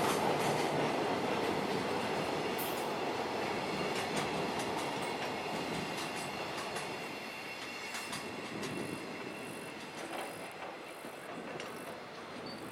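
Container wagons of a JR Freight train rolling past, a dense rumble with wheels clicking over rail joints and a thin high tone from the wheels. The sound fades steadily as the train draws away.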